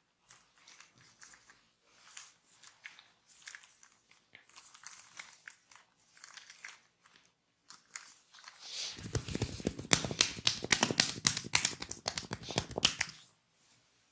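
A barber's hands massaging close to the microphone: soft crinkly scratching and rubbing, then, about nine seconds in, a dense run of quick, louder percussive strokes lasting about four seconds that stops suddenly.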